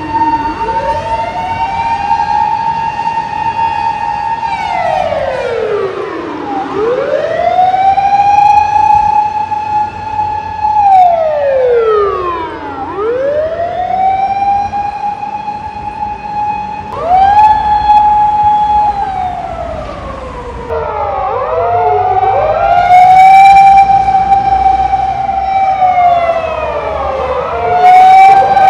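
Emergency vehicle siren wailing. The long tone rises, holds, then falls, repeating about every six seconds. In the second half a second siren wail overlaps it, out of step.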